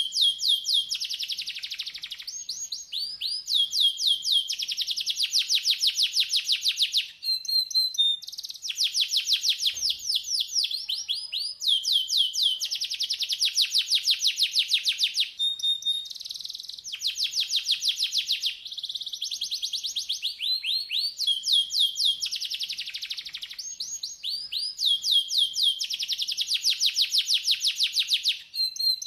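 Domestic canary singing: long, rapid trills of repeated down-slurred notes, phrase after phrase of a few seconds each with short breaks between, and now and then a brief steady whistle.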